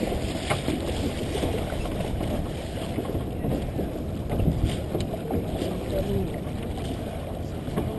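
Water rushing and slapping along a small sailboat's hull as it sails, with wind buffeting the microphone. A few sharp knocks, about half a second in and again past the middle.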